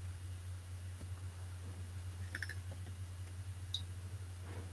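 Quiet room tone: a steady low electrical hum with a few faint clicks and short high blips.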